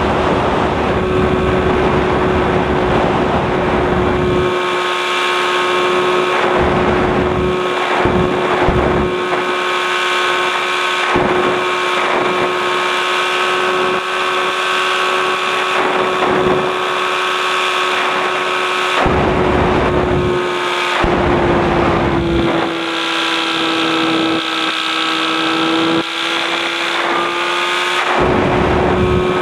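Light aircraft's engine and propeller running steadily in flight, its pitch sagging slightly for a few seconds past the middle before recovering. Wind buffets the microphone in repeated gusts.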